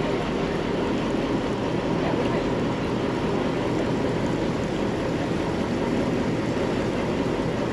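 Engine of a wooden river slow boat under way, running at a steady speed with a constant low hum, over the rush of water along the hull.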